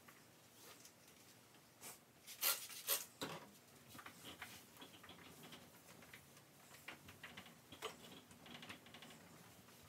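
Light, irregular clicks and knocks of household items being handled and set down during kitchen tidying, with a louder short clatter about two and a half seconds in.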